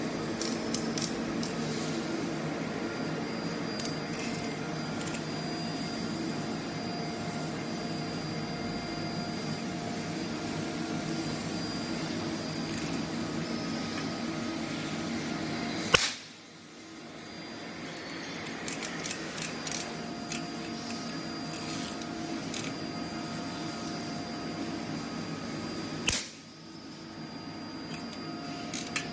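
IKSB-1250 capacitor-discharge insulation nail welder firing insulation pins onto a steel plate with a contact stud welding gun: two sharp cracks about ten seconds apart, one per pin welded, over a steady machine hum, with a few lighter clicks as the gun is set down.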